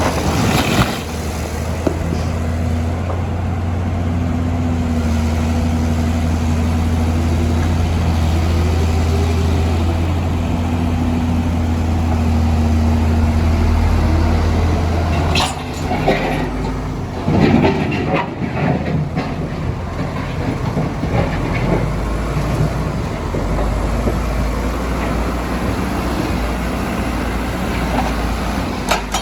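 Heavy diesel earthmoving machine engine running, its pitch rising and falling with the throttle. About halfway through, the sound changes to a different deep rumble, with a few seconds of knocks and clatter.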